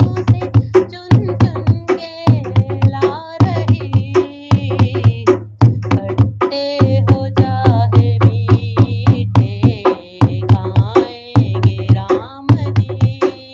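Hindi devotional song (bhajan) with singing over a quick, steady drum beat.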